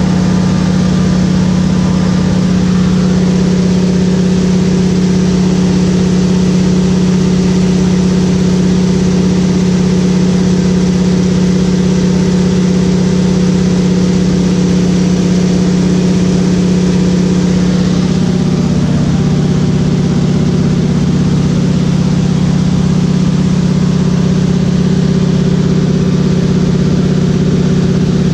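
Single-engine floatplane's piston engine and propeller droning steadily, heard from inside the cabin. The drone holds at one pitch, with a slight shift in its tone about two-thirds of the way through.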